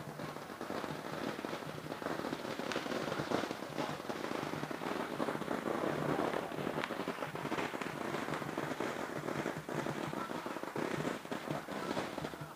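Firecrackers going off in a dense, continuous run of sharp, irregular pops and crackles.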